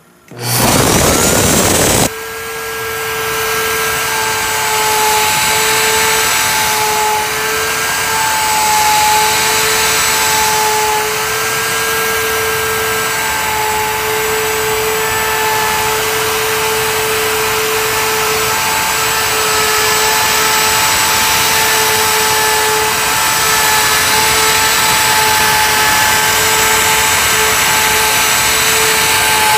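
CNC router spindle starting up with a loud rush about half a second in, then running with a steady high whine as its spiral end mill cuts into a wooden board.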